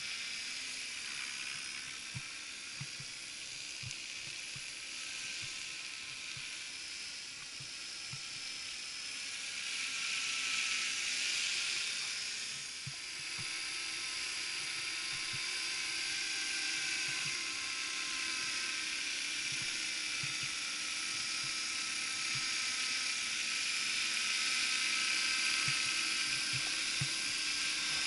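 Electric 450-size RC scale MD 500 helicopter flying: a steady high-pitched motor and gear whine with rotor noise, getting louder about ten seconds in as it comes down to hover low over the ground.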